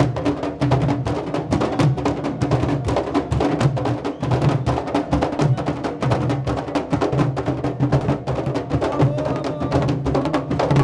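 A large group of candombe drums (tamboriles) played together on the march, with sticks clacking rapidly on the wooden shells over the deep pounding of the drumheads.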